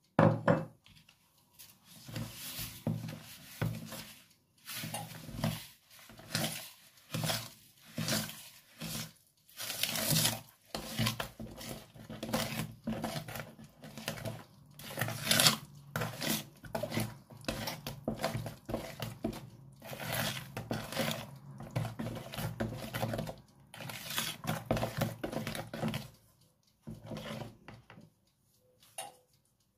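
A wooden spoon stirring a thick, wet sour cream and egg yolk filling in a plastic bowl: irregular repeated strokes of the spoon scraping through the mixture and knocking the bowl's sides, opening with one sharp knock. The stirring stops a few seconds before the end.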